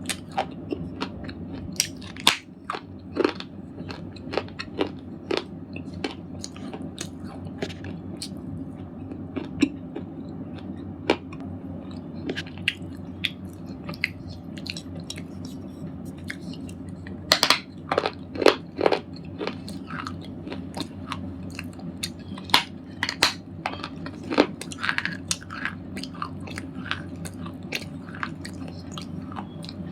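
Crunching of a red slate ball: irregular sharp cracks and crumbling, with a run of louder cracks a little past halfway, over a steady low hum.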